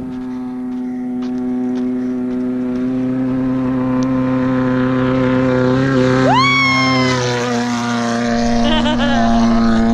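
Engine of an off-road race buggy approaching, growing steadily louder. About six seconds in, a rev rises sharply in pitch and then holds.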